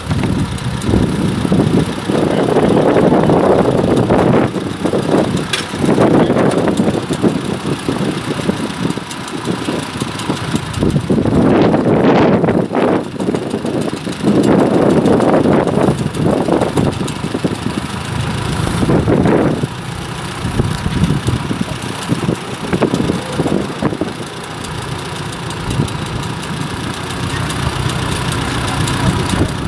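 An International Harvester (IHC) hay baler running with its engine, the machine noise swelling loudly and easing off again every few seconds as it works.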